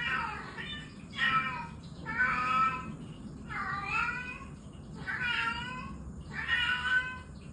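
A cat meowing over and over, about six drawn-out meows a second or so apart, each bending in pitch.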